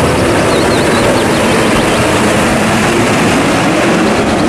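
Heavy fuel tanker trucks driving past in road traffic: a steady mix of engine and tyre noise.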